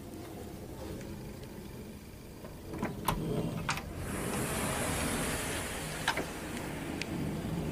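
Metal door knob on an interior door being gripped and turned, with two sharp latch clicks about three seconds in, then a steady hiss as the door is pulled open and a few more single clicks.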